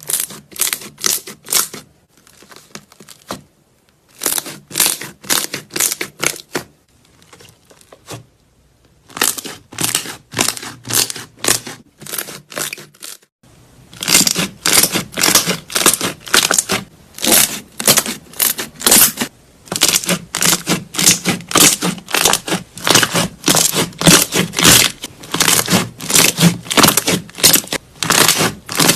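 Slime being squeezed and pressed by hand, making repeated crackling squishes about two to three a second. There are short pauses near the start, and the squishing runs without a break from about halfway.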